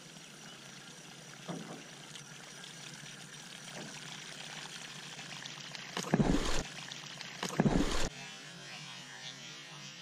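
Steady water noise around a small boat, broken by two loud, deep thumps about six and seven and a half seconds in.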